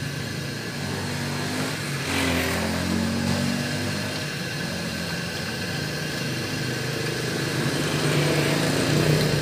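A motorcycle engine running steadily, with a louder swell about two seconds in as a vehicle passes.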